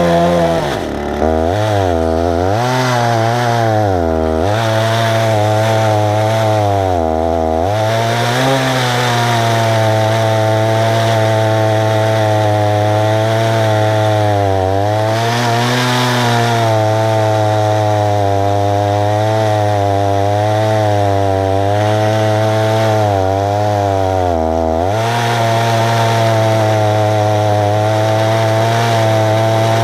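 Husqvarna 288 two-stroke chainsaw running at full throttle under load in an Alaskan chainsaw mill, ripping lengthwise through a tulip tree cant. The engine pitch sags and recovers several times as the cut loads it, most sharply about a second in.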